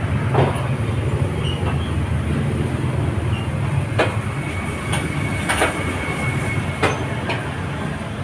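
A steady low mechanical rumble, with several sharp metal knocks and clanks at irregular intervals as a scooter frame is handled in a steel frame-straightening press.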